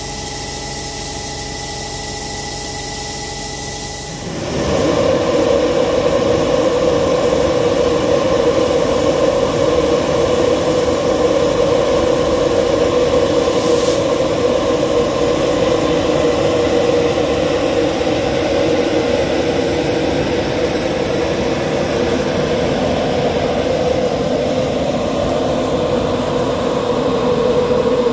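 Class 91 electric locomotive standing at a platform, giving a steady electrical hum. About four seconds in, a loud, steady rushing noise with a strong hum sets in from the locomotive's machinery and keeps going.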